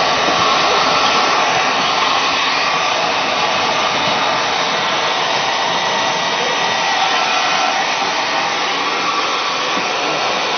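Hair dryer blowing steadily: a constant rush of air over a motor whine.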